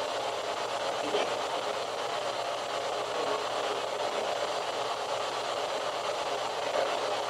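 A steady hiss like static, with a faint short sound about a second in.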